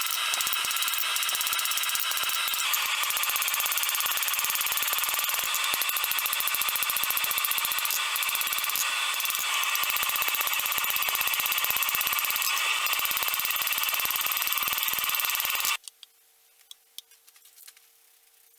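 A power tool runs steadily with a dense, rapid rattle and a high hiss, then cuts off abruptly near the end, leaving near silence with a faint steady hum.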